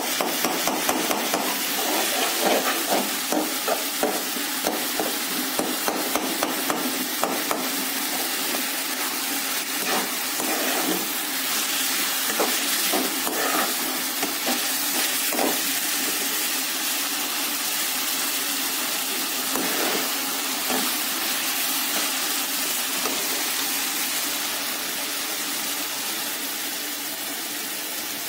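Chicken and tomato masala sizzling in ghee in a metal karahi on a gas burner, with a metal spoon knocking and scraping against the pan as it is stirred: many knocks in the first several seconds and a few more near the middle. The masala is being fried down until the ghee separates.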